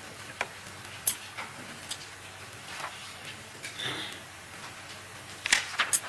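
Papers being handled at a microphone: a few scattered sharp clicks and paper rustles over quiet room tone, with a cluster of louder ones near the end.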